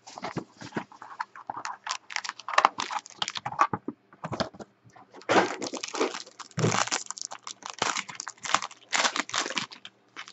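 Foil wrapper of a Panini Innovation basketball card pack crinkling and tearing as it is opened, with the cards sliding and clicking against each other as they are pulled out. An irregular run of crackles that grows denser about halfway through.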